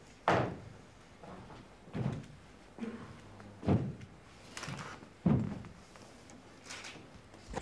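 Boots of a ceremonial honour guard marching in slow step on a hard floor. Four loud stamps come about every one and a half to two seconds, with fainter steps between them.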